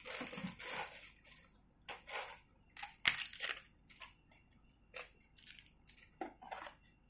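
Plastic bag and paper crinkling and rustling in short irregular bursts as they are pushed into a cardboard box, with a sharp crack about three seconds in.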